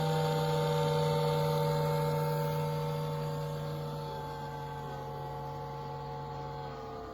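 Ninja Flip toaster oven and air fryer making a steady droning hum from the back of the unit, with several held tones, fading gradually from about three seconds in and sagging slightly in pitch near the end. It is the fault noise that the owner calls his problem with this unit, the same one his first unit had.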